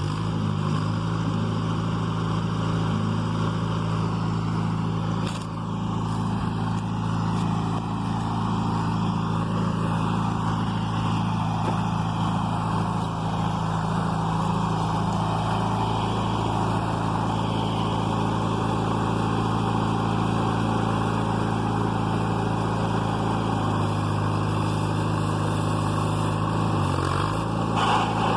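Backhoe engine running steadily, with a brief dip in pitch near the end as it takes a load.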